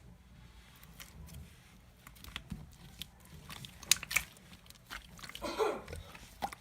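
Slime being squeezed and worked by hand, giving sticky clicks and pops. They are sparse at first and come thicker and louder from about two seconds in.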